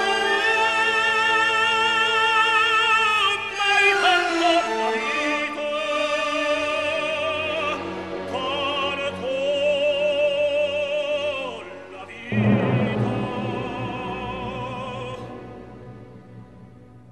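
Operatic solo voice singing with wide vibrato over an orchestra, heard as a gramophone record playing in a cartoon soundtrack. About twelve seconds in the song closes on a loud full orchestral chord that fades away.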